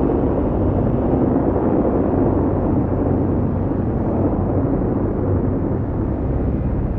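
Deep, steady rumble of a hydrogen bomb explosion, easing slightly toward the end.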